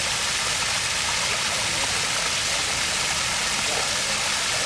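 Water stream running over rocks: a steady, even rushing.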